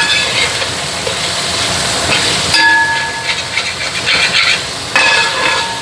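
Onions frying in coconut oil in a metal pan, a steady sizzling hiss, with a spoon stirring and scraping against the pan; the scrapes ring out more from about halfway.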